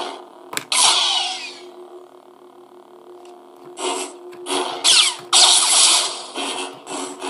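Lightsaber sound effects from a hobby sound board played through a small speaker: a steady buzzing hum with loud swing swooshes that sweep in pitch. The hum and swooshes fade to a faint background about two seconds in and return about four seconds in.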